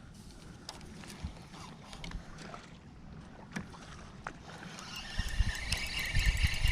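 Boat sounds on open water: faint scattered clicks and knocks, then from about five seconds in a louder steady rushing noise with low thumps, the sound of the boat moving or water and wind against the hull.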